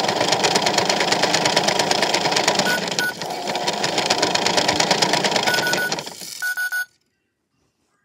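Toy washing machine running its spin, the small motor turning the plastic drum with a fast, dense clicking rattle. Short high beeps come around three seconds in and again near the end, and the machine stops suddenly about seven seconds in.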